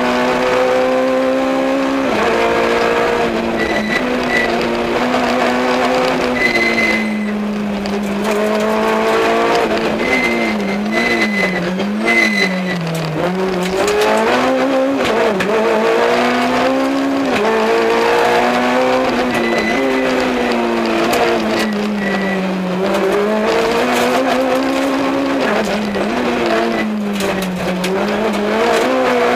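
Peugeot 106 XSI rally car's four-cylinder engine at high revs, heard from inside the cabin, its pitch climbing and dropping again and again through gear changes and lifts. Short high tyre squeals come several times in the corners.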